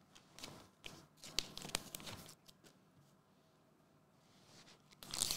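Trading cards handled on a cloth mat: faint taps and rustles. About five seconds in comes loud crinkling of a foil card pack wrapper.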